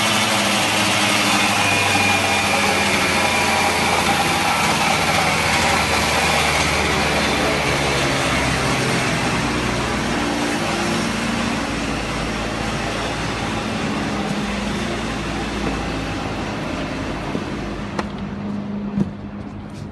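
K12 concrete cut-off saw's two-stroke engine running, its high whine falling in pitch over the first few seconds, then settling into lower, steady running that slowly fades. A couple of sharp clicks come near the end.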